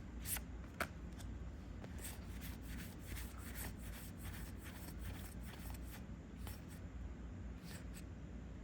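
Trading cards from a booster pack being flipped through by hand: faint, scattered flicks and soft rustles of card on card over a low steady hum.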